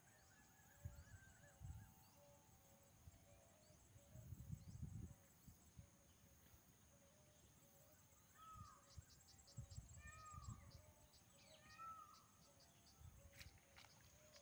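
Near silence: faint outdoor ambience with a few soft bird chirps from about eight seconds in, over low rumbles on the microphone.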